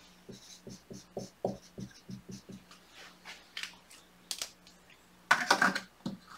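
Dry-erase marker writing on a whiteboard: a run of short scratchy strokes, about three or four a second, then lighter scratches and one louder, brighter stroke near the end.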